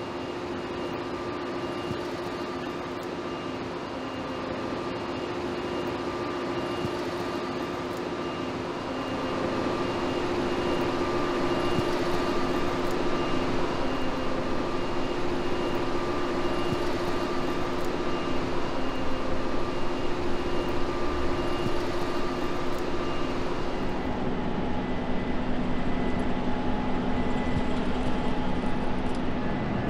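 Steady industrial noise of shipyard machinery, a constant rumble with several steady humming tones over it.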